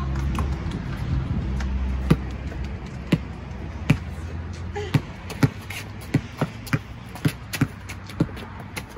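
A basketball being dribbled on a concrete driveway: sharp bounces, about one a second at first and quickening to about two a second in the second half. A low steady rumble runs under the first two seconds.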